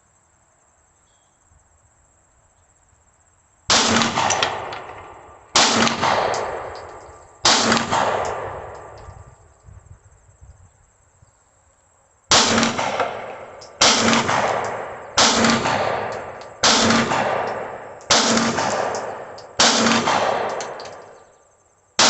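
Taurus G3 9mm pistol firing Hornady Critical Defense rounds, each shot followed by a long echo. Three shots about two seconds apart, a pause of about five seconds, then seven more at a steady pace of roughly one every second and a half.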